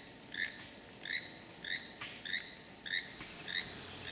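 Nature ambience: a steady high-pitched insect trill, with a short chirp repeating about every half second over it.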